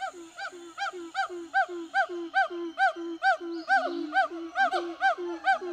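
Gibbon song: a regular series of hooting notes, each rising and falling in pitch, about two and a half a second. They grow louder over the first second.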